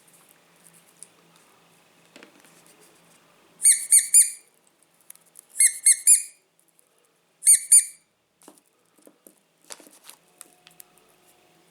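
High-pitched squeaky chirps in quick groups of three or four, repeated three times, with faint clicks and handling noises in between.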